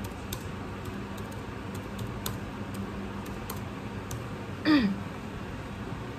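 Crayon scratching and ticking faintly on paper as it shades, over a steady low hum. About three quarters of the way in, a brief voiced sound from a person, falling in pitch, stands out as the loudest thing.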